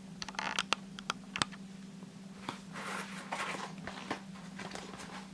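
Sneakers and their packaging being handled: a few sharp clicks and taps in the first second and a half, then a stretch of scratchy rustling, over a steady low hum.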